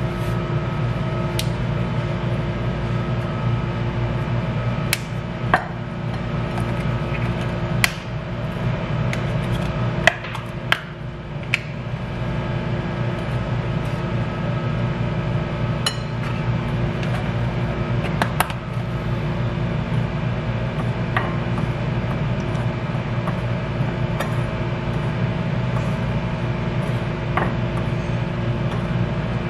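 A metal spoon and containers make scattered sharp clicks and knocks against a glass mixing bowl while dry flour is scooped and stirred. Under them runs a steady hum of an appliance with several held tones.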